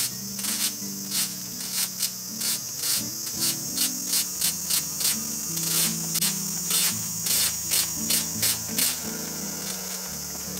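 A rake scraping twigs and leaves across an asphalt road in quick, regular strokes, about two to three a second, stopping near the end, over a steady high drone of insects.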